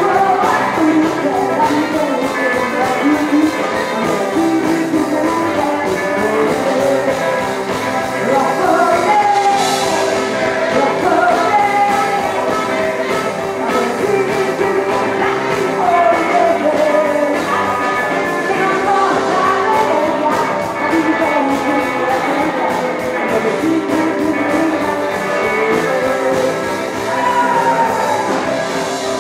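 Live rockabilly band playing a song, with a singer's voice over the band.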